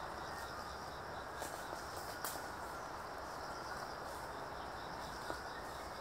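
Steady outdoor background noise: a low hum and hiss, with faint short high notes and a few brief soft clicks.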